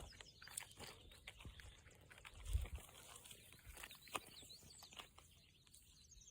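Faint scattered crackling and rustling of dry vegetation, with a low thump about two and a half seconds in.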